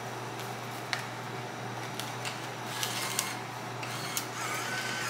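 Steady electrical hum with a few light clicks and taps as paper bills are fed into a laundry card machine's bill slot.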